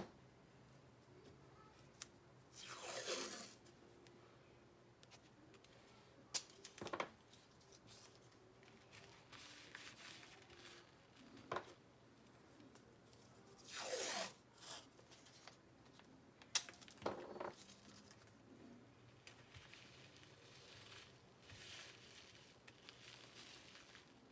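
Painter's tape pulled off the roll in two long rips, each falling in pitch, with a few short sharp snaps between as strips are torn off.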